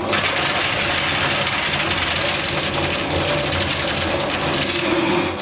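Electric drain-cleaning machine spinning a steel spiral cable inside a greasy drain pipe, the whirling cable rattling and clattering against the pipe as it works. The rattle starts suddenly and keeps up evenly.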